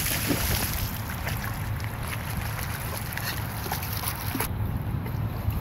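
Wind rumbling on the microphone over moving floodwater, with scattered small splashes and clicks. The hiss drops away abruptly near the end.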